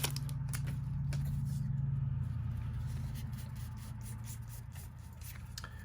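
Faint rubbing, sliding and light clicks of Yu-Gi-Oh trading cards being handled, over a low steady hum that swells about two seconds in and then fades.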